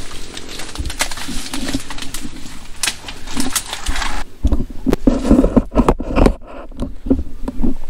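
Dense bamboo and brush rustling and crackling as someone pushes through it on foot, leaves and stems scraping past the camera. From about halfway in, irregular low thumps of the undergrowth knocking against the microphone.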